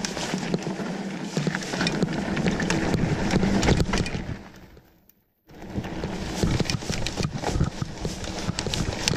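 Mountain bike rattling over a rough dirt trail at speed: tyre noise on dirt with a rapid clatter of knocks and clicks from the chain, frame and bars. The sound fades out a little past four seconds in, is silent for about half a second, then comes back.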